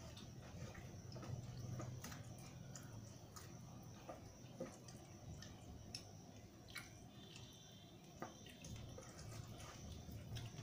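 Faint scattered wet clicks and squishes of eating by hand: fingers mixing rice and dal on a steel plate, and chewing, over a steady low hum.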